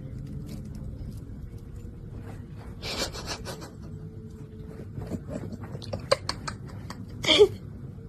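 Scattered scrapes and sharp clicks over a faint steady hum, then a short, loud voice-like cry near the end.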